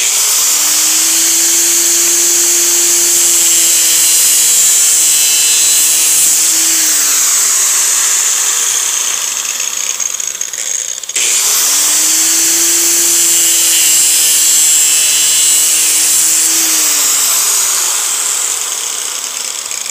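Handheld electric angle grinder with an abrasive disc running at full speed on a PVC pipe elbow: a steady high whine with a hissing grind. Its pitch drops about seven seconds in; the sound breaks off abruptly about eleven seconds in, comes back at full speed, and drops in pitch again near the end.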